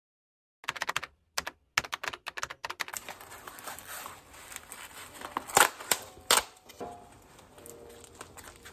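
A quick run of computer-keyboard typing clicks for the first two seconds or so. Then the crinkle and clicks of a plastic natto pack being opened by hand, with two sharp clacks about halfway through.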